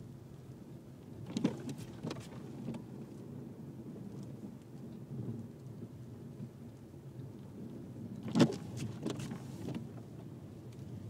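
Volkswagen Jetta driving through snow: a steady low rumble of engine and tyres, broken twice by clusters of sharp knocks and thumps, about a second and a half in and again about eight seconds in, the second the loudest.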